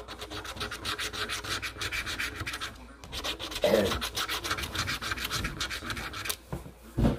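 A scratch-off lottery ticket being scratched in quick, repeated rasping strokes, with a short pause about three seconds in. There is a brief low sound in the middle and a dull thump near the end.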